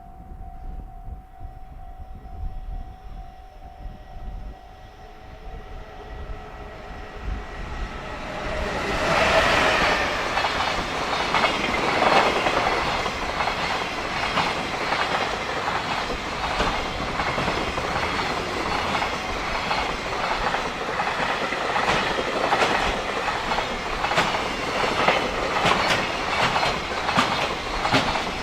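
A level crossing's warning bell rings steadily, then from about eight seconds in a freight train passes close by, loud, its wagon wheels clacking over the rail joints in a quick rhythm while the bell keeps ringing underneath.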